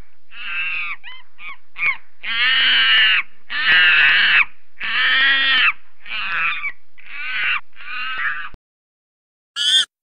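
An animal giving a loud series of about eleven harsh calls, each under a second long, the longest three in the middle. The calls stop abruptly about eight and a half seconds in, and one short call follows near the end.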